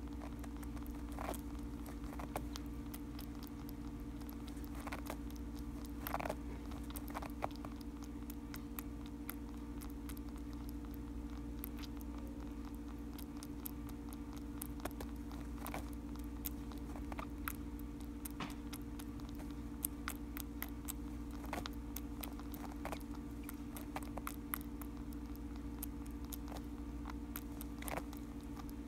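Baby cottontail rabbit suckling formula from a rubber nipple on a syringe, making soft, irregular little clicks and smacks. A steady low hum runs underneath.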